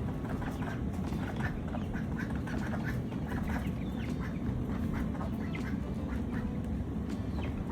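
A group of ducklings peeping continuously, many short high calls overlapping one another, over a steady low rumble.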